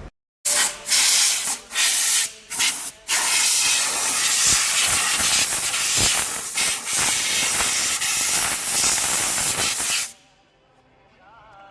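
Compressed-air blowgun blowing air through a diesel injector: a few short loud blasts of hiss, then one long continuous blast that cuts off abruptly about ten seconds in.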